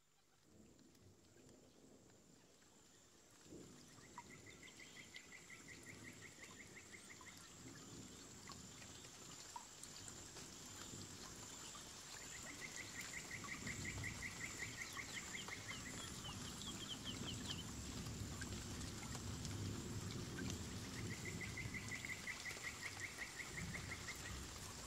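Forest ambience: a steady high insect-like drone, a rapid trill that comes three times, each lasting about three seconds, and low rustling and tapping that grow louder from about halfway in.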